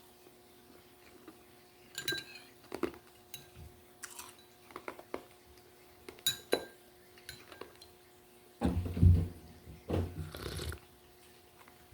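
Glassware and utensils clinking: a scatter of sharp taps over several seconds. Near the end comes a louder, dull, low noise lasting about two seconds.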